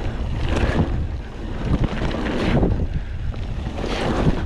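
Mountain bike riding fast down a dirt trail: wind buffeting the microphone over the low rumble of the tyres, with a few knocks as the bike rattles over bumps.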